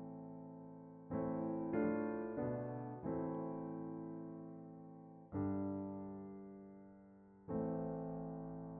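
Gentle background piano music: chords struck one after another, four in quick succession in the first few seconds, then two more spaced out, each left to ring and fade.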